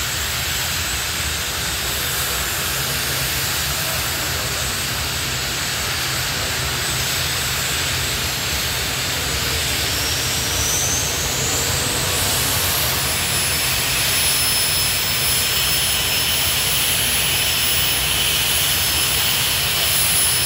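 Jet car's turbine engine running at the start line: a steady rushing noise with a high whine that rises in pitch about halfway through, then holds as steady high tones.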